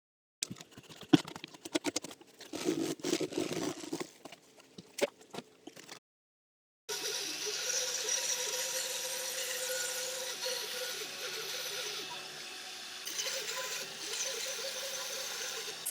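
Workshop sounds: several seconds of irregular clattering knocks from wooden parts and tools being handled. Then a power tool starts up and runs steadily on wood with a rubbing, hissing scrape.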